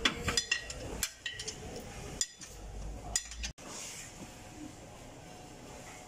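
Several sharp metallic clinks and taps of tools and parts on a truck's air dryer assembly as it is being removed, over about the first three seconds, then only a faint steady background noise.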